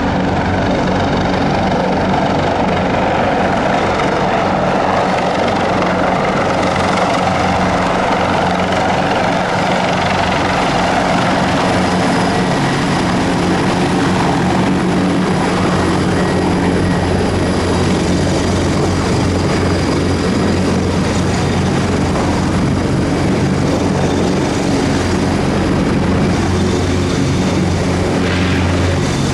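Airbus H225M Caracal twin-turbine helicopter on its approach and landing hover, its five-bladed main rotor and turbines running loud and steady. A thin high turbine whine sits over the rotor noise.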